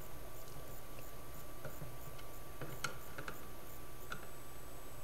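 Faint, scattered clicks of a small screwdriver turning screws into the plastic case of an Alge Timy timer, over a steady faint hum.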